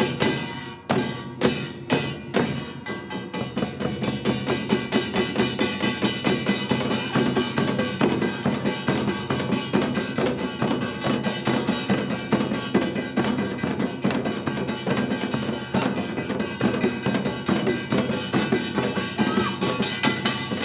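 Korean traditional percussion ensemble playing: separate, widely spaced strokes speed up within the first few seconds into a fast, dense beat, with ringing tones held over the drums.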